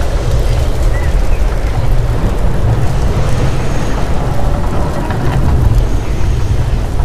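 Loud, steady deep rumbling from a volcano attraction's recorded eruption soundtrack, played over loudspeakers during the fire show.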